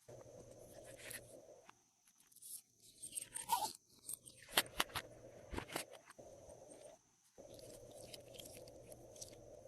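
Glossy slime being squished and mixed by hand, with sticky crackles and several sharp pops and clicks from about two and a half to six seconds in. Around them is a steady background hiss that cuts in and out abruptly.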